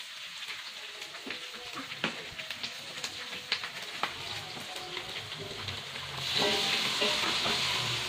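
Spice paste and pieces of bird meat frying in oil in a wok, a steady crackling sizzle. The sizzle grows louder about six seconds in as more meat goes into the hot oil.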